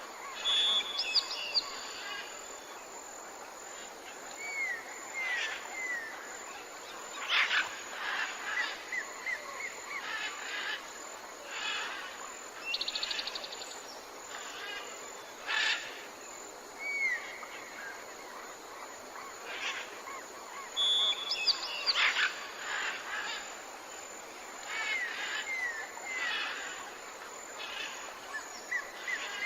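Several wild birds calling in a forest: short chirps, slurred whistles and a buzzy trill over a steady background hiss of the forest, with a few sharp, louder calls standing out.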